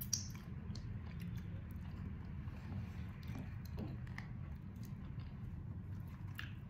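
People chewing sweet martabak, with small wet mouth sounds and finger-licking, over a steady low hum.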